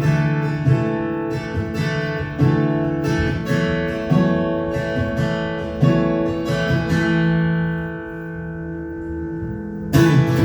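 Acoustic guitar strummed in a steady rhythm, with chords ringing between strokes. About two-thirds of the way in, one chord is left to ring and fade for a few seconds before the strumming starts again near the end.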